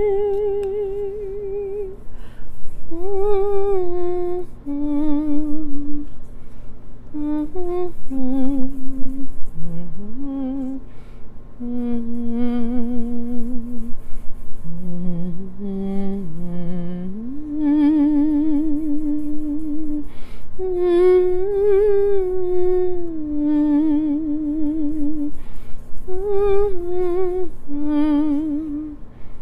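A woman humming a slow melody with her mouth closed, holding long notes with a wavering vibrato and gliding between them.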